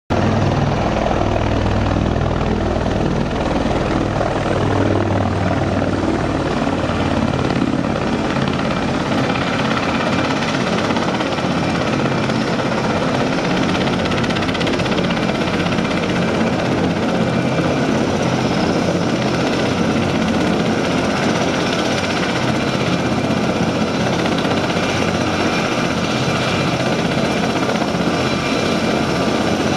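MV-22 Osprey tiltrotor taxiing, its two proprotors turning with nacelles upright. Loud, steady rotor noise runs over the high whine of its twin Rolls-Royce turboshaft engines. The deep rumble eases after about eight seconds.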